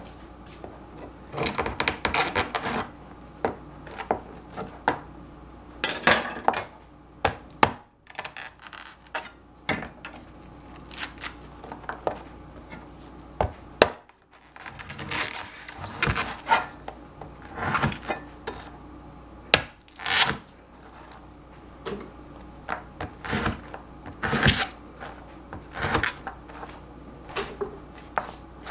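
Chinese-style cleaver cutting through crusty bread on a plastic cutting board: the crust crackles under the blade and the blade knocks on the board in irregular bursts, with the bread handled between cuts.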